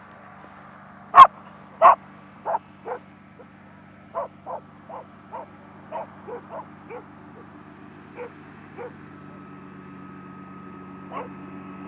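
A dog barking repeatedly: two loud barks about a second in, then a run of quicker, fainter barks, and one last bark near the end. Under the barking, the steady drone of a hovercraft's engine grows louder toward the end as it approaches.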